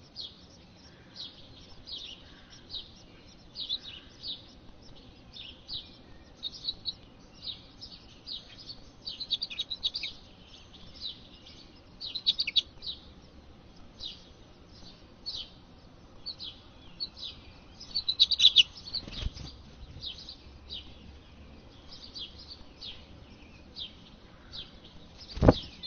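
House finch nestlings begging to be fed with short, high, falling chirps, one or two a second, with quicker runs now and then. A low thump about 19 seconds in and a louder thump near the end.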